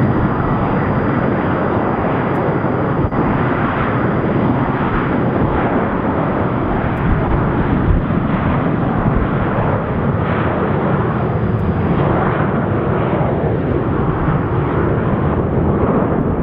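Airbus A321 jet airliner on its takeoff roll, engines at takeoff thrust: loud, steady jet engine noise.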